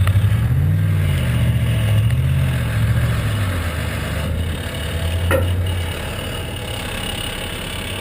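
Truck engine working under load while towing a semi stuck in snow. The engine rises and falls in pitch twice, holds steady, then eases off about six seconds in, with a sharp click just before.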